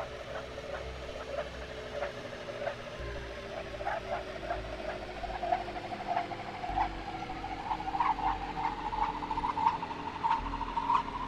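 Experimental electronic sound texture: a dense band of rapid clicks and crackles that slowly rises in pitch, over low sustained drone tones and a rumble that shifts every few seconds.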